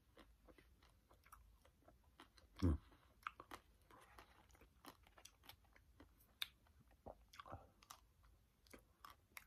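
Chewing and biting into a chocolate-coated Klondike ice cream bar: scattered small crackles and mouth sounds, with a brief murmur about three seconds in.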